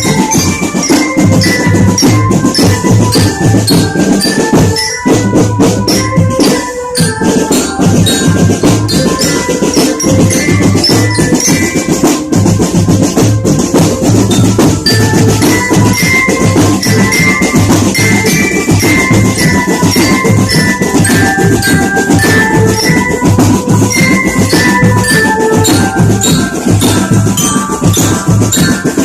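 Marching drum band playing: a steady, dense drum beat under a melody on bell-like mallet instruments, with two brief drop-outs in the drumming about five and seven seconds in.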